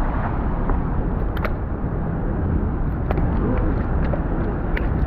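Steady low rumbling outdoor noise with a few faint ticks.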